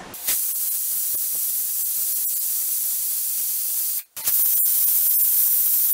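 Prestige pressure cooker on a high gas flame hissing steam steadily from its weight valve: the cooker is up to full pressure. The hiss cuts out briefly about four seconds in, then resumes a little louder.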